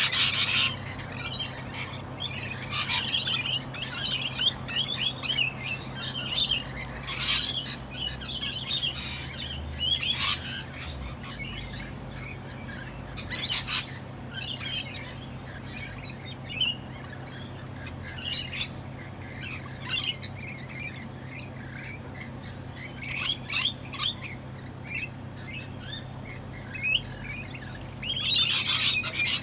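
Parrots chirping and squawking in quick irregular clusters of short high calls, busiest at the start and again near the end, with sparser calls in between.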